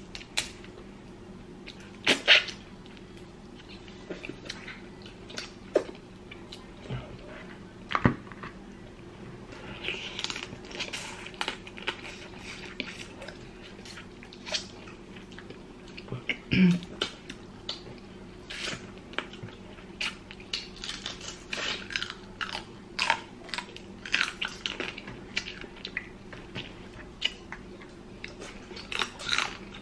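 Close-up chewing and wet mouth sounds of someone eating boiled shrimp, with scattered clicks and crackles as the shrimp shells are peeled by hand.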